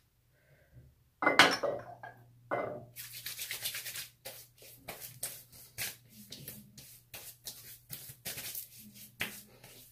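Hands rubbing and patting menthol aftershave splash onto a freshly shaved face: a couple of sharper sounds about a second in, then a long run of quick, irregular rubbing strokes.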